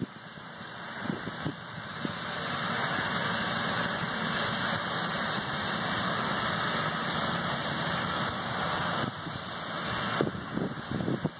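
Grass-cutting mower's engine running steadily, with gusts of wind on the microphone at the start and near the end.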